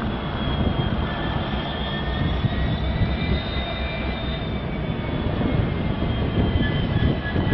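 Two Union Pacific SD70M diesel-electric locomotives running as they move the train slowly: a steady, heavy engine rumble with thin high whining tones over it that drift slightly in pitch.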